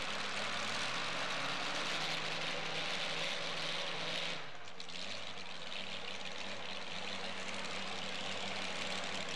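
Modified two-wheel-drive pulling truck's engine idling steadily at the starting line before its pull, under an even hiss.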